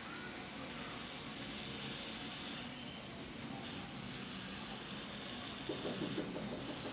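RC aerosol lubricant hissing from its straw nozzle in two long sprays of about two seconds each, soaking a stiff, rusted laptop hinge to soften it.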